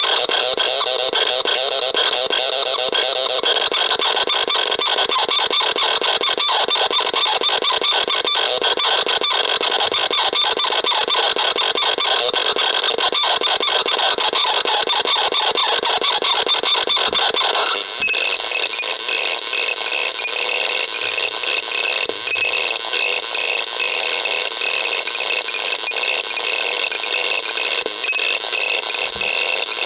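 Vapesonic RX 21 sounding abstract, radio-like electronic noise: a dense, rapidly flickering buzz and hiss. About eighteen seconds in it switches abruptly to a slightly quieter texture with a high, pulsing beep-like tone.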